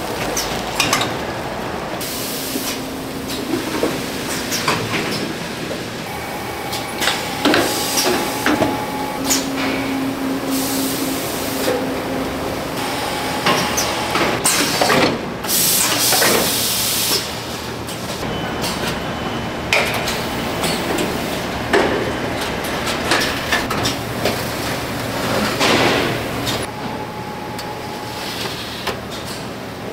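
Snack factory production machinery running: a steady mechanical noise with frequent clacks and knocks, a few short steady tones, and a loud hiss for a couple of seconds about halfway through.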